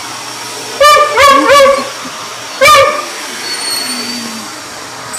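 A beagle barking four times, three quick barks about a second in and one more near the three-second mark, over a vacuum cleaner running steadily.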